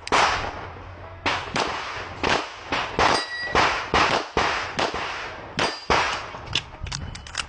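Handgun firing a rapid string of about fifteen shots at uneven spacing during a timed stage, with a quicker run of shots near the end.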